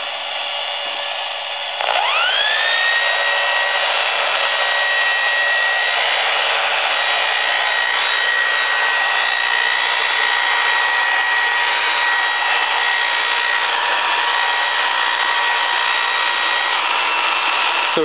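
AM radio hissing with static. About two seconds in, a hand-held hairdryer is switched on: a whine rises quickly and settles into a steady high tone over a loud steady rush, with the radio picking up the dryer's electromagnetic interference.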